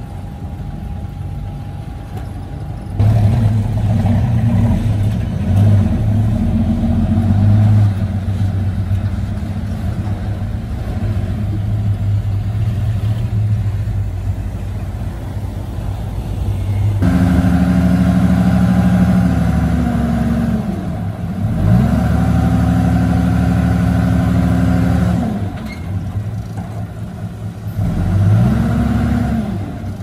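Isuzu diesel dump truck engines running loud and steady, the revs dropping and climbing back twice in the later part.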